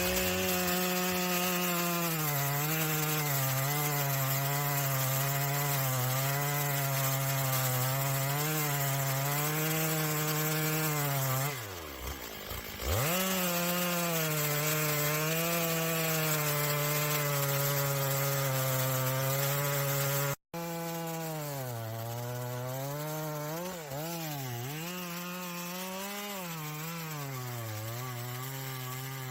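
Chainsaw engine revving up and running at high speed while cutting wood, its pitch wavering under the load of the cut. About twelve seconds in the revs fall briefly and then pick up again. After a brief dropout about twenty seconds in, a chainsaw cuts again with its engine speed rising and falling more.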